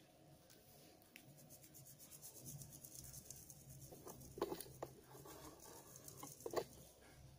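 Flour being shaken through a handheld metal sieve onto a wooden cutting board: a faint, fast, even patter, with a few louder taps in the second half.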